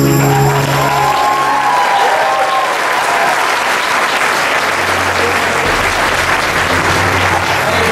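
Audience applauding in a concert hall, the clapping starting over the ensemble's last held notes, which die away about a second in.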